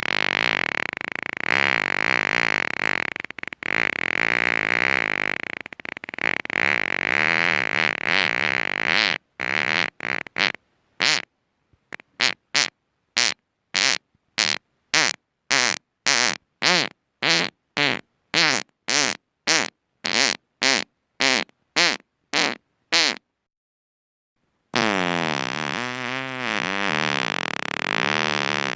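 Long, wavering fart sounds. About nine seconds in they break into a rapid run of short, evenly spaced toots, about two a second, which stop for a moment before another long wavering fart starts near the end.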